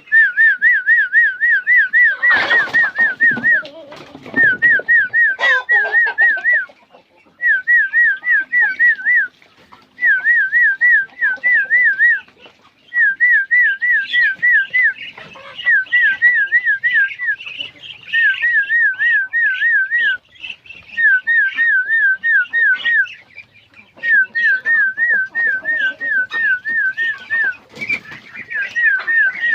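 A high whistled, bird-like call repeated in regular phrases: each phrase is about eight quick rising notes lasting about two seconds, coming back every few seconds. Brief scuffling noise breaks in a few seconds in.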